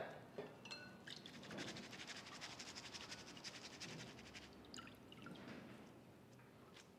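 Water dripping from a stainless steel mesh strainer of freshly rinsed poha into the glass bowl below as it drains. It is faint: a quick patter of drops that thins to a few single drips about five seconds in.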